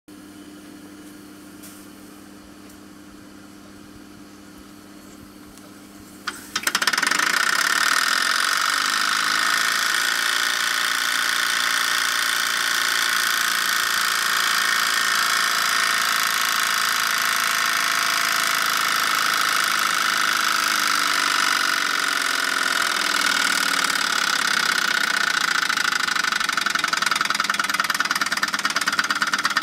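Jensen model 65 live steam engine: a faint steady hum, then about six seconds in it starts running with a loud, steady hiss of steam. Fast, even exhaust beats show through the hiss near the end.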